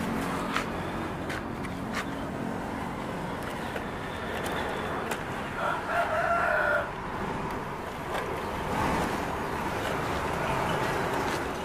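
A rooster crows once, a single held call about six seconds in, over a steady outdoor background with scattered sharp clicks.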